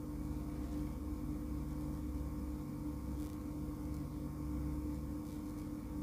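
Steady low hum with a constant pitched drone and no distinct events: background electrical or motor room tone.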